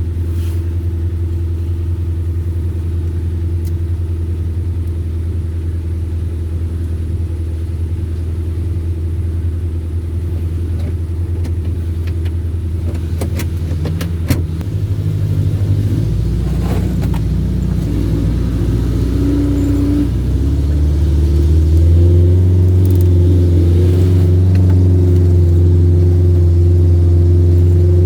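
Off-road 4x4's engine running steadily under load, its revs stepping up about halfway through and again near the end, then held higher, as it pulls a stuck vehicle. A few sharp knocks come just before the first rise.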